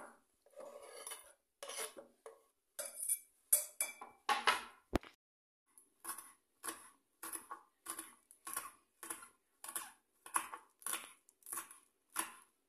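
Kitchen knife scraping chopped garlic into a glass bowl with a few clinks and a sharp tap. Then, from about six seconds in, the knife slices green chillies on a wooden chopping board in an even run of cuts, about two a second.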